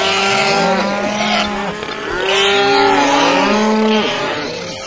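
A herd of cattle mooing, many overlapping calls, some held level and some bending up or down in pitch.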